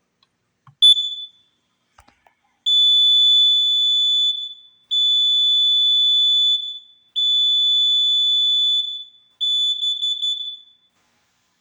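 Kidde carbon monoxide detector sounding its test alarm: a short chirp, then four long, loud, high-pitched beeps with short gaps between them, the last one wavering before it stops.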